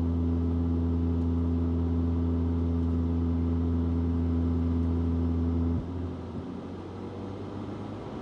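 Golf GTI 8.5's turbocharged 2.0-litre four-cylinder engine droning at steady revs. The drone drops away suddenly about six seconds in, leaving quieter road and tyre noise.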